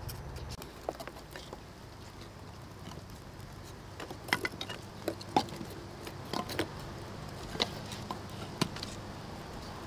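Light wooden clicks and knocks of dry kindling sticks being set into a clay charcoal stove and tapping against its rim and each other. The knocks come in a quick cluster in the middle, then a couple of single ones near the end.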